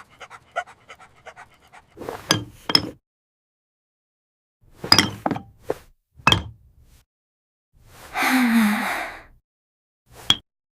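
Dog panting, broken by several short, sharp sounds and a longer breathy rush about two-thirds of the way in.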